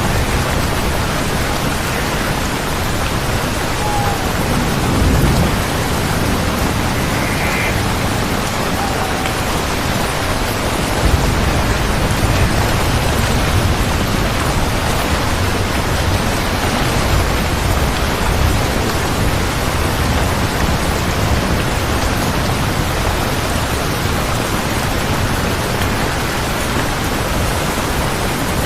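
Steady heavy rain, with a low rumble of thunder underneath.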